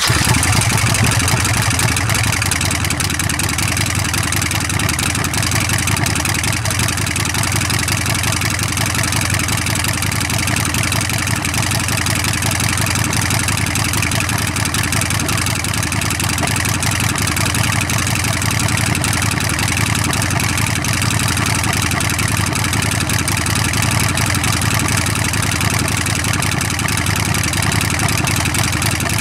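2011 Harley-Davidson Sportster Nightster's 1200 cc V-twin idling steadily through Vance & Hines aftermarket exhaust pipes.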